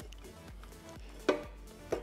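Metal parts of a Mazda 13B rotary engine knocking together as the engine is taken apart by hand: a sharp knock a little past a second in and a lighter one near the end, over background music.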